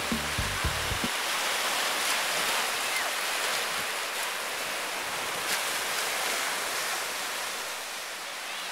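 Music with a beat ends about a second in, giving way to a steady wash of ocean surf.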